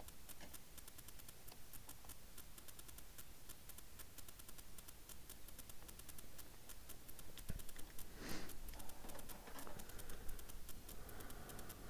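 Light rain pattering as a dense run of fast, sharp ticks, with a brief rustle about eight seconds in.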